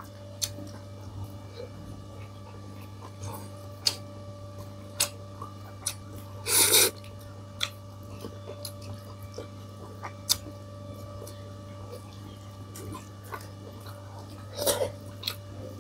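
Quiet eating sounds: scattered small clicks against a plate and chewing, over a steady electrical hum. One short loud burst about six and a half seconds in, and a softer one near the end.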